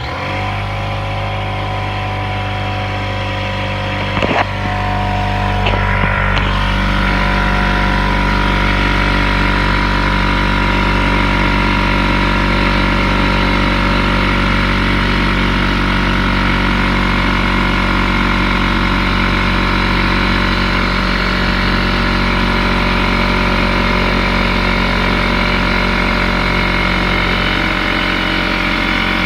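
Porter Cable oil-free pancake air compressor starting up suddenly and running steadily, its motor and pump filling the tank. There is a brief click about four seconds in.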